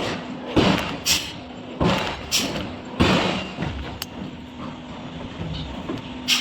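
Irregular heavy knocks and thuds of forge work, about seven strikes at uneven gaps of half a second to a second, over a steady machine hum.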